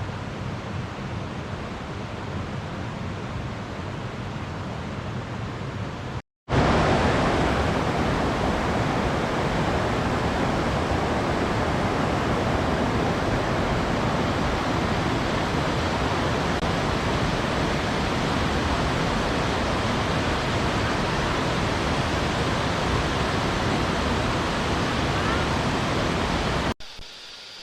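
Rushing water of a waterfall and forest river, a steady, even rush with no rhythm. It cuts out for a moment about six seconds in and returns louder and brighter, then drops to a quieter rush near the end.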